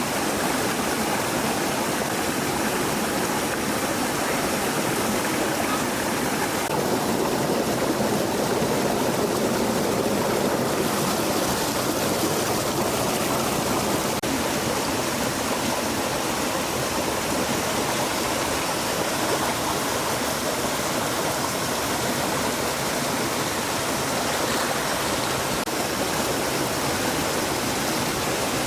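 A stream of flowing water rushing steadily, a little fuller for a few seconds about seven seconds in.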